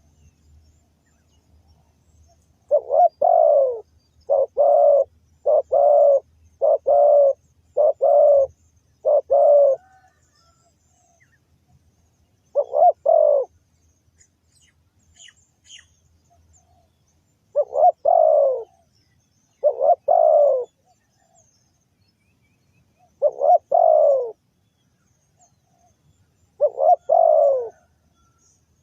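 Spotted dove cooing: a quick run of six low two-part coos about a second apart, then single coos every few seconds.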